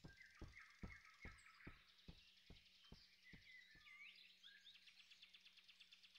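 Faint forest ambience with birds chirping. Over the first few seconds a run of soft, evenly spaced knocks, about two a second, fades away.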